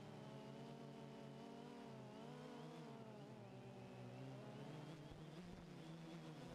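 DJI Phantom 2 quadcopter's motors and propellers humming faintly and steadily, the pitch wavering and dipping about two to three seconds in as the motors change speed.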